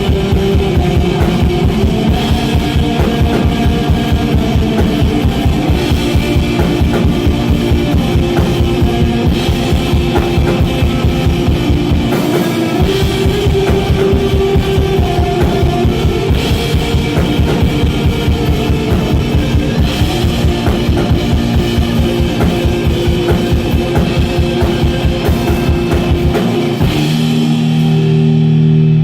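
Live instrumental post-metal from a two-piece band: guitar over drums, with a rapid, steady kick-drum pattern. About 27 seconds in, the drums drop out and a held low chord rings on.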